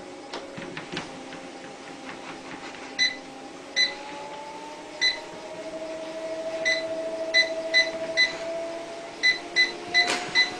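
Treadmill motor whining steadily, its pitch rising in steps a few seconds in and again near the end, with about eleven short electronic beeps from the console in clusters, the motor speeding up after them.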